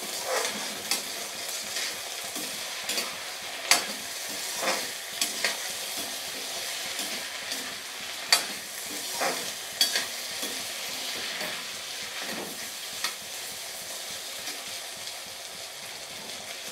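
Diced new potatoes sizzling steadily as they fry in mustard oil in an iron kadhai, stirred with a perforated metal ladle that scrapes and clinks against the pan every second or two.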